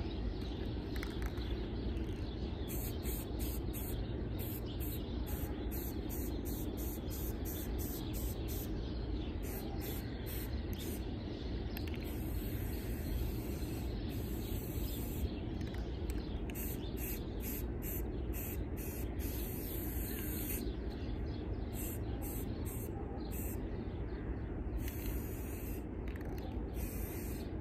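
Aerosol spray can hissing in many short bursts, with a few longer sprays, as a plastic license plate frame is coated. A sharp click right at the start, and a steady low rumble of outdoor background underneath.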